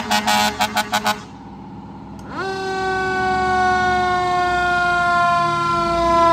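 Antique American LaFrance fire engine sounding warning devices: a quick run of about six short horn blasts, then its siren winding up about two seconds in and holding a loud wail that slowly sinks in pitch.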